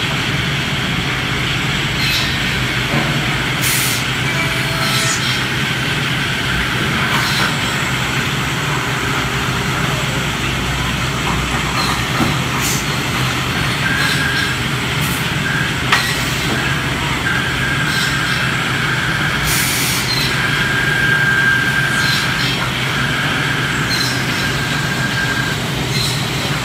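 Pade five-axis CNC router machining a wooden chair part: a steady, loud machine drone with a low hum underneath. A high steady tone comes and goes in the second half, and there are a few short hisses, the two strongest about 4 and 20 seconds in.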